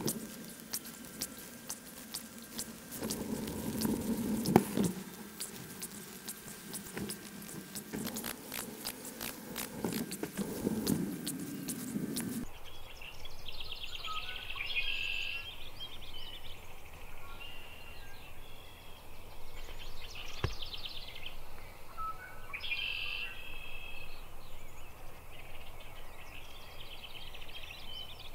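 Close rustling with many sharp clicks for about twelve seconds, then a sudden change to songbirds chirping and singing, with short repeated phrases.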